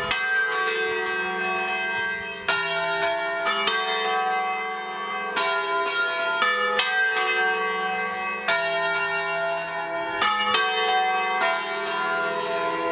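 Church bells ringing in the bell tower. The strikes come about a second apart, each bell ringing on under the next, so the peal overlaps into a continuous sound.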